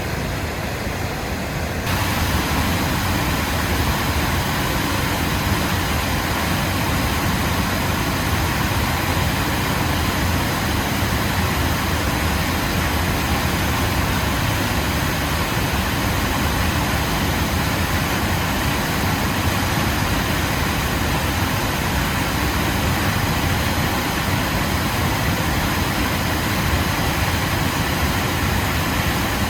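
Waterfall: falling water rushing steadily with a deep, even roar. About two seconds in it gets louder and fuller, then holds steady.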